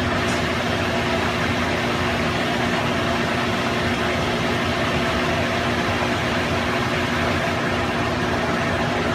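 A motor or fan running steadily: an even whooshing noise with a constant low hum.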